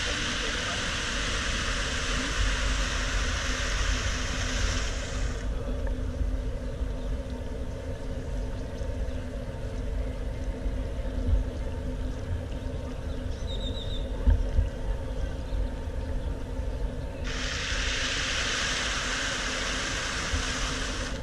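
City street ambience: a steady low rumble of traffic, with a loud hiss laid over it that cuts off about five seconds in and starts again abruptly near the end.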